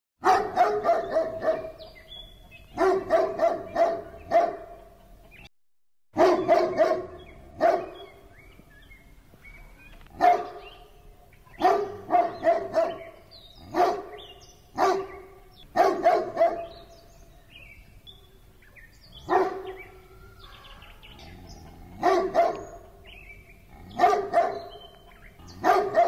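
A big dog barking in short runs of two to four barks, with pauses of a second or two between runs.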